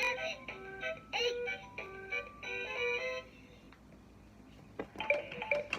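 LeapFrog Fridge Phonics toy playing an electronic tune of short stepped notes through its small speaker. The tune stops about three seconds in; after a short pause there is a click and it starts again near the end.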